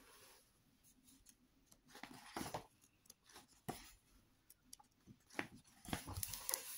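Pages of a large illustrated hardcover book turned by hand: several quick paper rustles and swishes, the longest just before the end.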